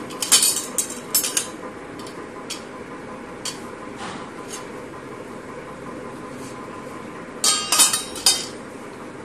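Stainless steel spice-box cups, spoon and plates clinking as they are handled: a burst of sharp clinks near the start, a few single clinks through the middle, then another burst about seven and a half seconds in.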